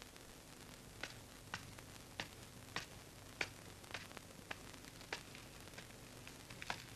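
A series of light, sharp knocks at a fairly even pace of nearly two a second, over the steady hiss and hum of an old film soundtrack.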